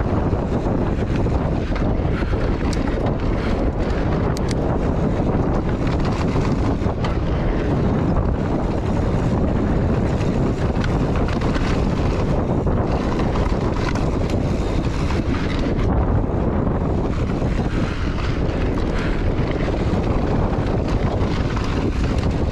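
Wind buffeting the microphone of a camera on a mountain bike descending a dirt trail at speed, mixed with tyre rumble on the dirt and a few light rattles of the bike.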